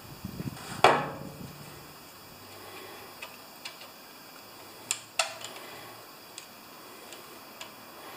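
Small screwdriver clicking and scraping against the aluminium clamp of a generator engine's governor arm as it is worked into the slot to spread it. There are a few sharp metallic clicks, the loudest about a second in with a short ring, and two more around five seconds, between fainter ticks.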